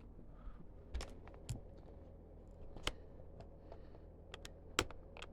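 Scattered light clicks and knocks, about eight spread unevenly, as a wired gaming mouse's USB plug is handled and fumbled against a computer's ports.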